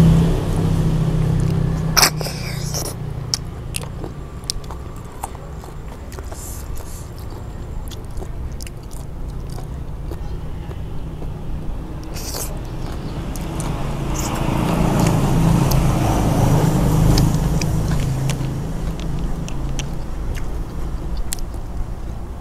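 Someone sucking cooked river snails out of their shells and chewing them, with wet sucking and chewing noises and a few sharp clicks, the clearest about two seconds in and again near the middle. A low steady rumble lies underneath and swells about two-thirds of the way through.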